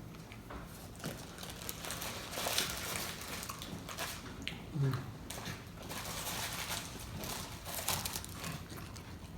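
Close-up eating sounds: chewing tacos with irregular crackles and crinkles, as of paper taco wrappers being handled. A short hum of voice about halfway.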